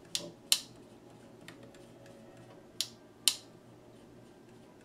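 Power switch on the volume control of a 1968 Sony 6F-19W transistor radio clicking as the control wheel is worked back and forth, its high-resistance contacts freshly sprayed with DeoxIT. Four sharp clicks in two pairs, about half a second apart within each pair, with a faint tick between the pairs.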